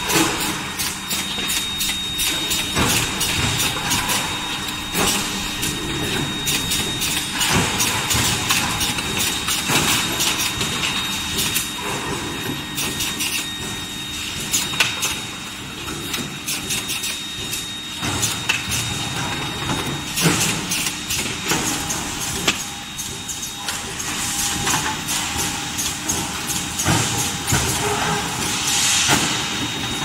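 Forge-shop machinery running: an induction bar-heating furnace and a mechanical forging press. A thin steady high whine runs under a continuous mechanical din, with frequent clanks and knocks from billets and the press.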